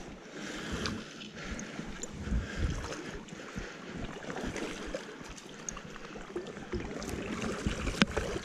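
Gusty wind buffeting the microphone over the steady rush of a river, with scattered small knocks and one sharp click near the end.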